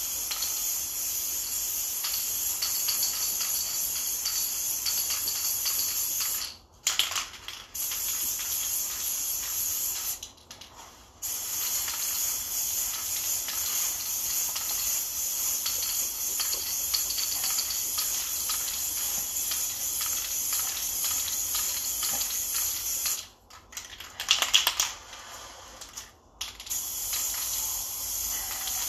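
Aerosol can of gray spray primer spraying in long steady hisses as it sweeps back and forth over a football helmet, stopping briefly a few times. In the longest break, near the end, there is a short quick rattle, the can's mixing ball as the can is shaken.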